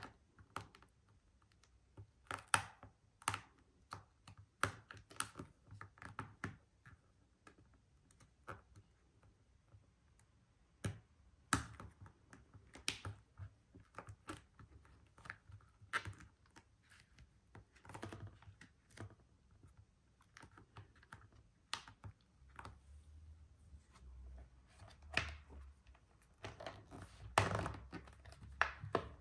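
Fingertips pressing and tapping an LED strip down onto a clear plastic file box, making irregular light taps and clicks on the thin plastic. Near the end there is a cluster of louder knocks and rubbing as the box is gripped by its edges and handled.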